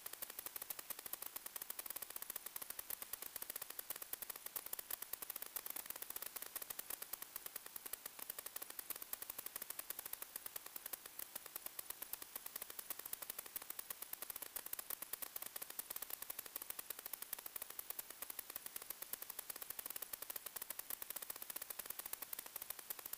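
Steady crackling hiss of radio static, strongest in the highs, with no motor or voice in it: the empty audio channel of an analog 1.2 GHz FPV video receiver.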